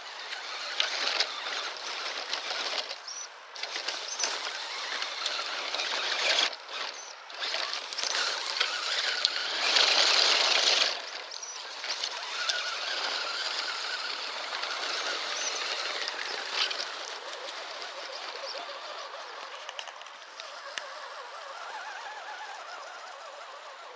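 1/10-scale electric RC crawler truck climbing a steep dirt slope: uneven drivetrain whir and tyres scrabbling over dirt and forest debris, loudest for about a second midway, then steadier and fading.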